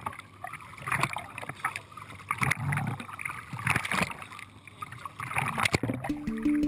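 Water sloshing and splashing against a camera held at the surface beside a dive boat, coming in irregular surges. Music starts near the end.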